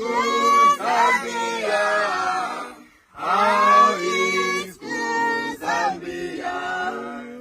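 Voices singing unaccompanied, in drawn-out sung phrases with a brief break about three seconds in.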